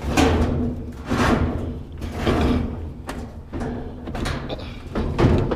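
Sheet-metal washing machine being dragged and shoved, giving repeated rough scraping, rattling strokes about once a second over a low rumble.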